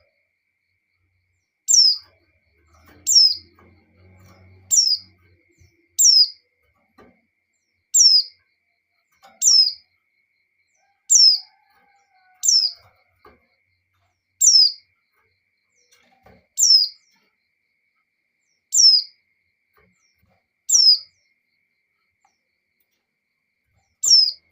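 Female white-eye (pleci) repeating a short, high call that falls in pitch, about a dozen times, roughly every one and a half to two seconds, with a longer pause near the end. It is the call a female in breeding condition gives to summon a male.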